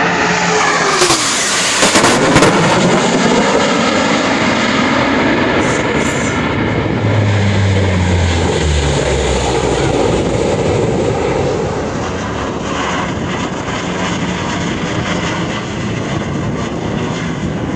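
Loud jet noise from a formation of Blue Angels F/A-18 Hornets passing overhead, its pitch falling as they go by. Then, from about seven seconds in, the four turboprops of the C-130 Hercules "Fat Albert" fly past low, adding a steady low drone under the noise.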